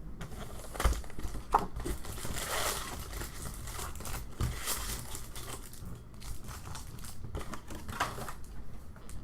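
Foil wrappers of trading card packs crinkling and tearing open. The rustling is irregular, with a few short, sharper crackles.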